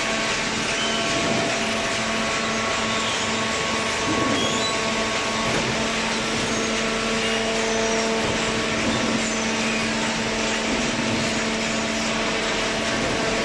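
Hydraulic waste-paper baler running: steady machine noise with several held humming tones over a constant hiss.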